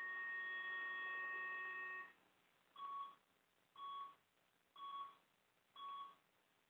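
Electronic tones from a pulsed field ablation generator during energy delivery at a lesion point: a steady chord of pure tones that stops about two seconds in, then four short beeps about a second apart.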